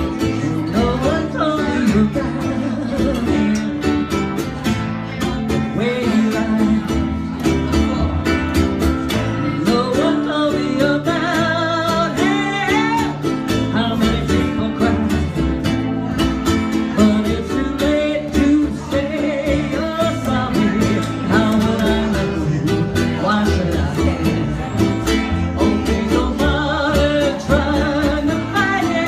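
Country-style music: a singing voice over plucked string instruments, guitar to the fore, with a steady beat.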